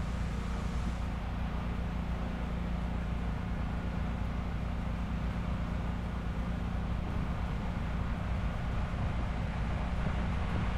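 Pressure-washing equipment's engine running steadily at a constant speed, a continuous low hum with an even hiss over it.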